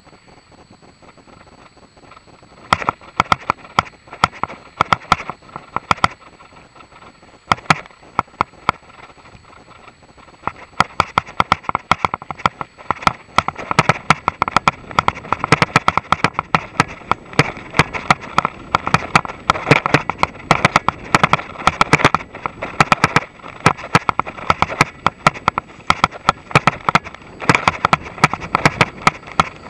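Rapid, irregular clattering and knocking from a full-suspension mountain bike and its mounted camera shaking over a bumpy grass and dirt trail. It starts in scattered bursts about three seconds in and becomes an almost continuous rattle from about ten seconds on.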